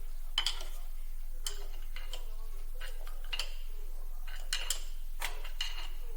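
Scattered light metallic clicks and clinks, about a dozen over several seconds, as metal parts and tools of a power sprayer pump are handled during disassembly.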